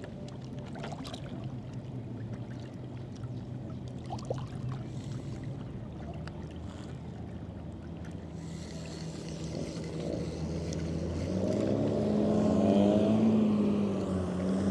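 Motorboat engine running, a low steady hum that grows louder about ten seconds in as the boat comes closer.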